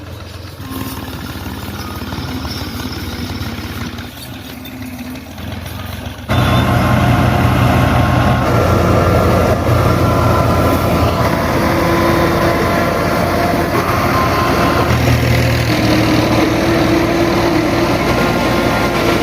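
Motorcycle engine running steadily, with a low hum that jumps abruptly much louder about six seconds in.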